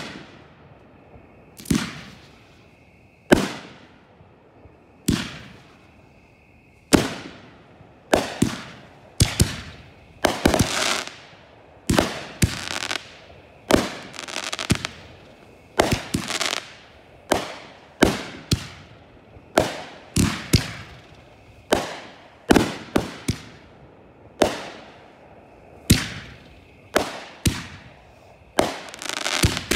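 Consumer aerial fireworks firing in a rapid series, each shell going off with a sharp bang that fades with a crackling tail. The bangs come about one every second and a half at first, then faster and closer together from about seven seconds in, ending in a dense cluster.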